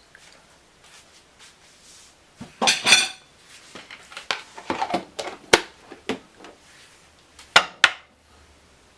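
A metal spoon and dishes clinking and clattering. There is a loud rattle about two and a half seconds in, then scattered light taps and scrapes, and two sharp clinks near the end.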